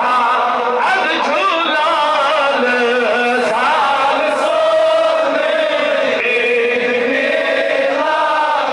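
A man chanting melodically into a microphone in drawn-out lines with wavering ornaments, holding one long note about halfway through.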